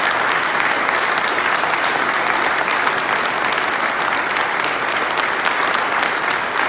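A large crowd applauding steadily, with many sharp individual claps close by.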